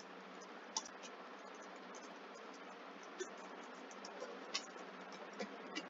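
Faint computer keyboard keystrokes, a few scattered clicks, over a steady hiss.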